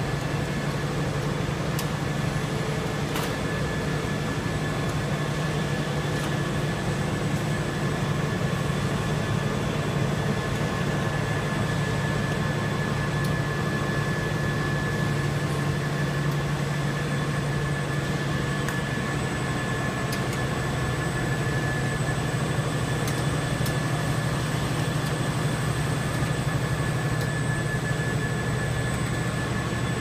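Rubber extrusion line running: a steady machine hum with a thin, steady high whine over it and a few faint clicks.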